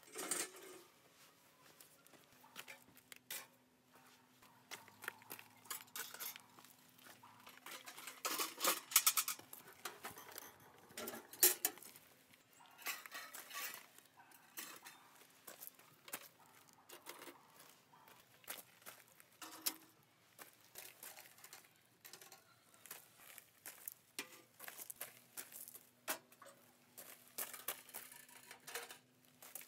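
Handmade metal camping wood stoves and their parts being handled and set down on gravel: irregular clanks and clicks of metal, with two louder knocks around the middle, and gravel crunching underfoot.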